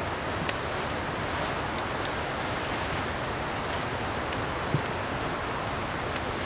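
Steady rain falling on the forest, with a few faint ticks and one soft thump about three-quarters of the way through.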